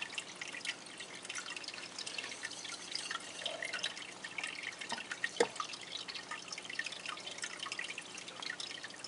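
Aquarium aeration bubbling: a steady patter of small drips and pops from bubbles reaching the water surface, with one sharper tap about five and a half seconds in.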